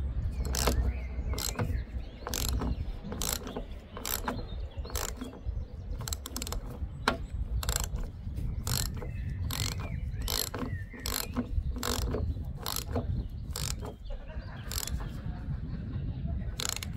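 Socket ratchet clicking, about twice a second, as an E14 Torx socket on an extension tightens a roof-rack mounting point into the carbon roof.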